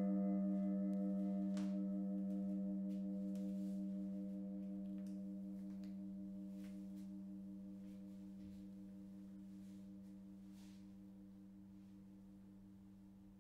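Low ringing tone of a struck metal gong-type instrument slowly dying away, with a wavering, beating overtone above it.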